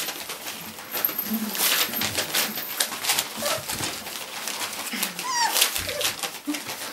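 Three-and-a-half-week-old Dalmatian puppies at play: short squeaks and grunts, with one higher squeal about five seconds in. Under them runs a constant scuffling and scratching of paws on the bedding.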